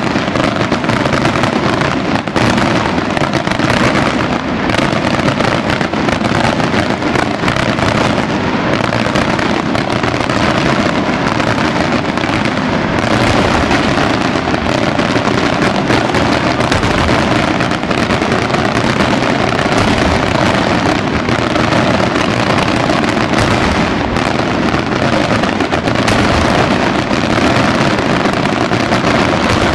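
Daytime aerial fireworks: a dense, unbroken barrage of shell bursts and rapid bangs running together.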